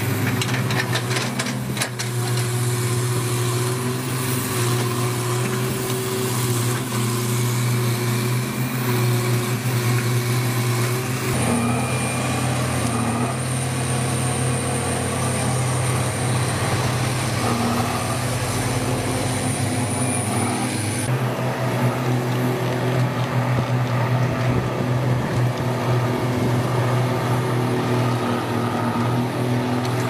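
Heavy diesel construction machinery running: a steady, deep engine drone that changes character abruptly about 11 and 21 seconds in.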